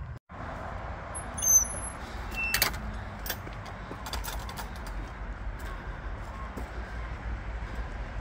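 Footsteps of a person walking along a dirt woodland path, over a steady low rumble of wind on the phone's microphone. A few short high chirps sound about a second and a half in, and a scatter of light clicks follows.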